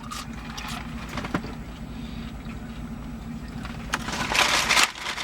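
Steady low hum of a car's idling engine, heard inside the cabin, with a few faint clicks and a short hissing burst near the end.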